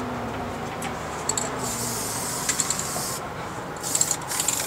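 Aerosol spray paint can spraying in two short hissing bursts onto a canvas: the first starts about a second and a half in and lasts about a second and a half, the second comes near the end.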